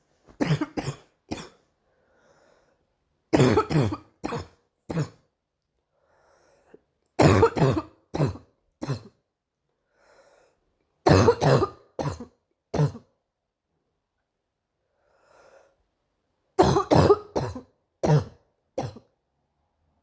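A girl's barking cough, in five fits of three to five hard coughs each, a few seconds apart, with a faint breath drawn in between fits.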